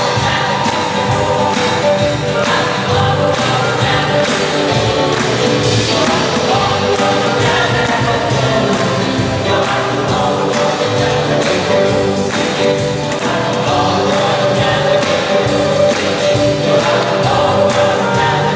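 Mixed choir singing a gospel song with a live band: keyboard, acoustic guitar, electric bass and drums, with a steady beat.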